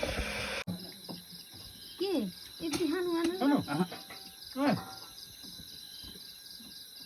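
Insects chirping in a steady, rapid pulse, with a few brief voice-like calls about two to five seconds in.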